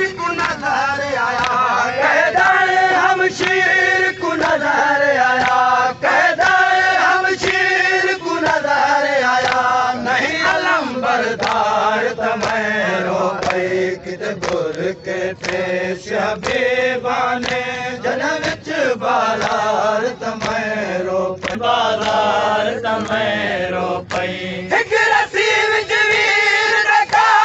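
Men chanting a Shia noha (lament) together in a slow, held melody, with sharp beats running through it.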